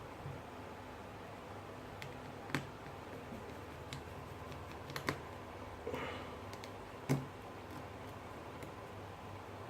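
A handful of light, irregular clicks and taps from small tools and phone parts being handled during a smartphone screen repair, over a faint steady hum.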